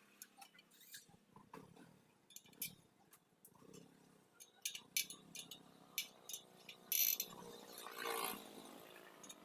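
Scattered light metal clicks and taps from hand tools working on a spoked motorcycle wheel, with a short hiss about seven seconds in and a brief pitched groan about a second later.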